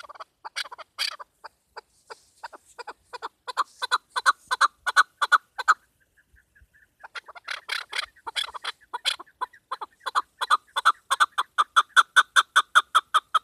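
Chukar partridge calling: two long runs of rapid clucking notes that quicken and grow louder, broken by a short pause about halfway.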